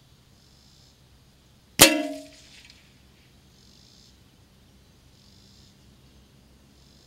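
A single shot from a Savage Mark II FVSR .22 LR bolt-action rifle, heard at the target end, about two seconds in: one sharp crack followed by a short metallic ring that dies away within about half a second.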